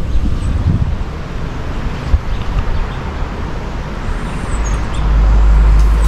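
Road noise from inside a moving car: a steady rumble of tyres and engine. About five seconds in it gives way to a heavier, deeper rumble.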